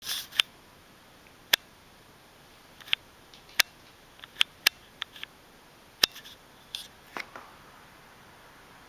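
A cat rolling and kicking on a hardwood floor in a catnip fit, its claws and paws knocking and scratching the boards: about a dozen sharp, irregular clicks and taps.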